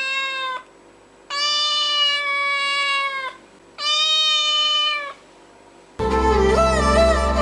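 Three drawn-out, meow-like calls at a steady pitch, the middle one the longest, each falling slightly at its end; about six seconds in, string music starts.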